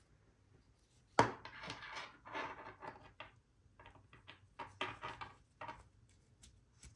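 Handling noise: a sharp knock on a hard surface about a second in, then several seconds of irregular rustling and scraping as things are handled, with a few small clicks near the end.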